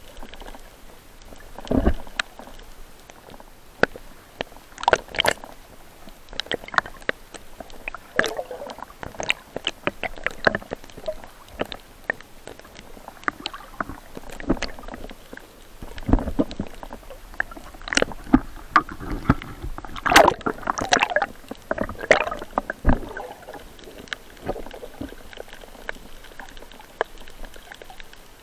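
Water sloshing, gurgling and splashing against a waterproof camera housing at the sea surface, with irregular sharp splashes and knocks; busiest in the second half.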